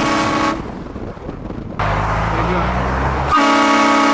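Car-mounted HornBlasters air train horn blasting a multi-note chord: a short blast that stops about half a second in, and another that starts a little past three seconds in. Between the blasts comes a loud stretch of noise with a low drone.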